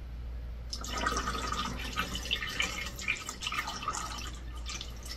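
Purified water poured from a plastic graduated cylinder into a funnel, trickling and splashing down into the CO2 laser's coolant tank as the water-cooling system is topped up. The pouring starts about a second in and dies away near the end.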